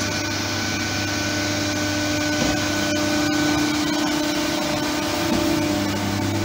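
ER9M electric multiple unit standing at the platform with its onboard machinery running: a loud, steady electrical hum and whir with several held tones.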